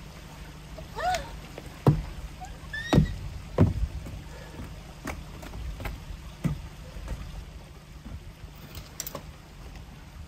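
Knocks and footfalls on a wooden deck while a living-shell tent is pitched, with its poles and fabric being handled; about ten sharp knocks, the loudest in the first few seconds, and a couple of brief squeaks among them.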